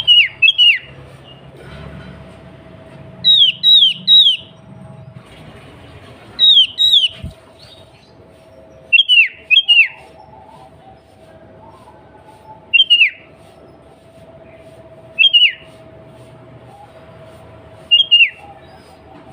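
Sooty-headed bulbul (kutilang) calling: short, sharp, falling notes in pairs and triplets, repeated every two to three seconds, over a faint steady hum.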